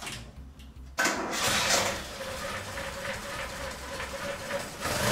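1974 Mitsubishi Galant's engine starting about a second in and running with a steady whine from inside the engine, a 'hiru hiru' noise that the mechanic puts down to the cam chain.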